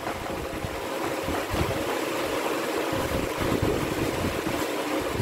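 Steady background noise with an unsteady low rumble and a faint hum, with no distinct events: room noise.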